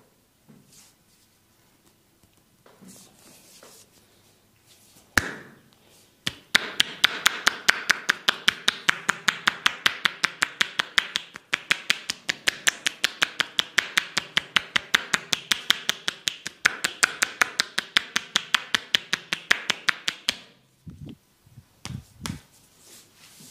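A masseur's hands drumming rapidly and evenly on the body in percussive tapping massage strokes, about five a second, for roughly fourteen seconds. A single sharp slap comes just before the run, and a few dull thumps follow it.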